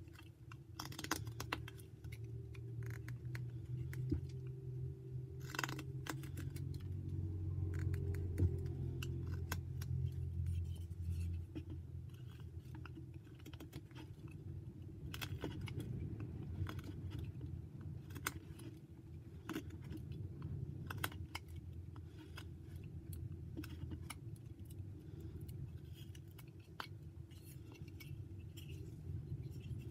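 Whittling knife paring white pine by hand: irregular small clicks and short scraping cuts as chips come off. Underneath runs a steady low hum, loudest for several seconds about two to twelve seconds in.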